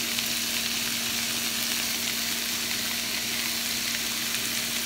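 Sliced squash, zucchini, peppers and onions sizzling steadily in oil in a hot frying pan.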